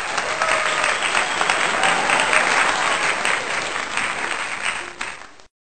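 Crowd applause, a dense steady clapping that fades out and stops shortly before the end.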